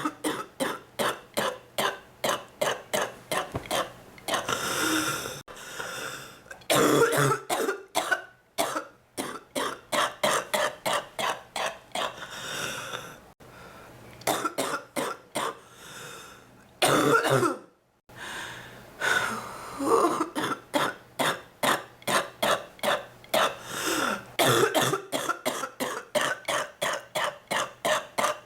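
A woman coughing in long, rapid fits of three to four coughs a second, with breaths drawn in between the fits. It is a deep, wet cough, which the uploader labels whooping cough.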